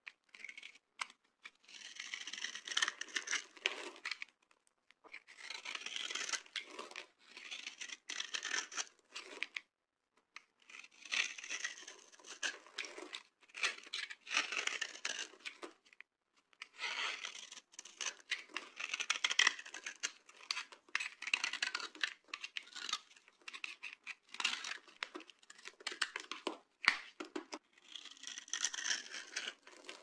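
Utility-knife blade scraping across the grid-scored surface of a bar of dry soap, shaving and breaking off crumbs with a crisp crackling crunch. The strokes come one after another, each a second or two long, with short pauses between them.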